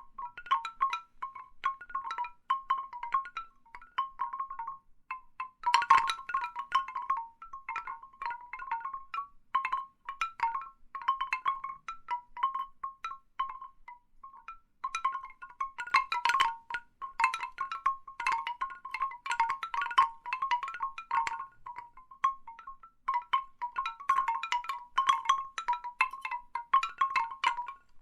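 Large bamboo wind chimes, hollow wooden tubes knocking together in irregular clusters of short woody tones. The knocking thickens into busier flurries about six seconds in, around sixteen seconds and again near the end, and thins out for a moment a little before the middle.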